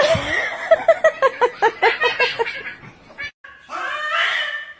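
A person laughing in a quick run of short ha-ha bursts, about six a second, for around two seconds. After a break, a cat being held down yowls.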